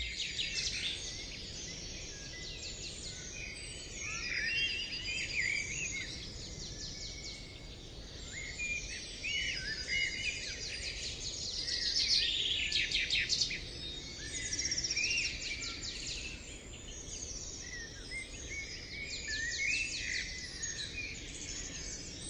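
Several birds chirping and trilling, with many overlapping short calls and rapid trills, over a steady low background rumble.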